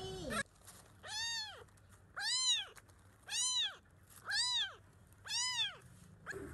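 Very young kitten meowing five times, about once a second: high, arched meows that rise and fall in pitch.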